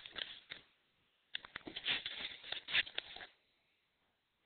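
Dogs scuffling about: a quick, scratchy patter of paws and claws, in a short spell at the start and a longer one from about a second and a half in to about three seconds in.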